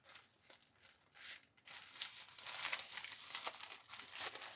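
Clear plastic bag crinkling and rustling as a pad of scrapbook paper is slid and handled in it, loudest about two to three seconds in.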